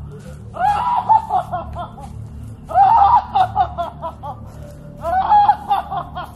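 A high-pitched voice laughing in three short bursts, about two seconds apart, over a low steady drone.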